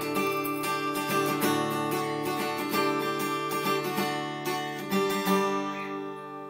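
Acoustic guitar strumming chords, fading out near the end.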